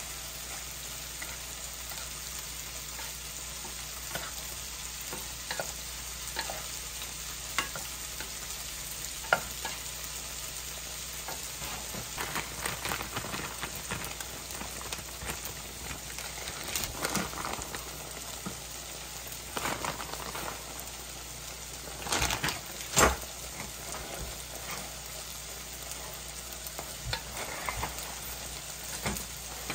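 Stir fry sizzling steadily in a frying pan, with occasional knocks and scrapes as it is stirred, the loudest about three quarters of the way through.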